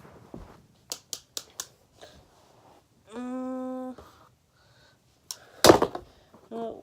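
Sharp clicks and snaps of plastic packaging being worked open: four quick clicks about a second in, a brief hummed note in the middle, and a loud crack near the end.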